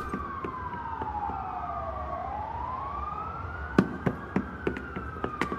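Siren wailing: one slow cycle that slides down in pitch, climbs back up and starts to fall again. A few sharp knocks sound over it in the second half.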